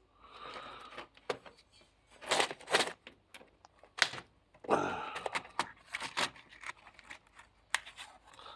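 Handling noises: several short crinkly rustling bursts and scattered light clicks as small parts and packaging are picked up and moved about.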